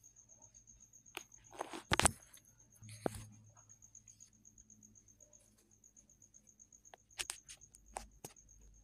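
A sheet of paper handled on a table: scattered light taps and clicks with a short rustle, over a faint steady high tone.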